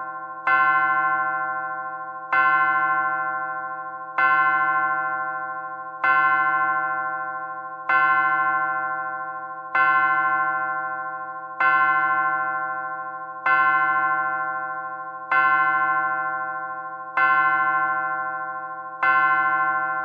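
Antique pendulum clock striking: one bell tone hit eleven times at an even pace, about one stroke every two seconds, each stroke ringing on and fading before the next.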